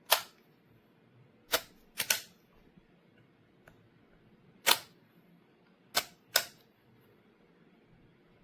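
A series of sharp clicks, about seven, spaced irregularly, two pairs of them coming in quick succession.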